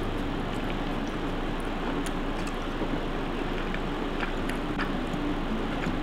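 Udon noodles being eaten: soft slurping and chewing with a few faint wet mouth clicks, over a steady low hum.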